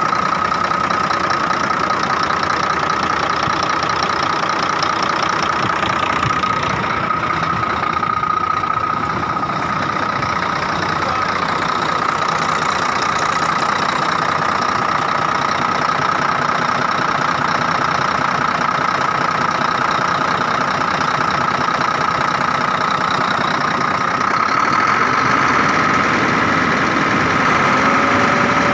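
Scania DC11 11-litre straight-six diesel engine running steadily at idle, with a constant high whine over the engine note.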